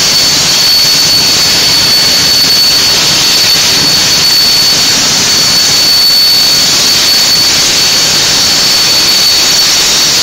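Hypertherm HyPerformance plasma torch on a CNC cutting table cutting through metal plate: a loud, steady hiss with a constant high-pitched whine running through it.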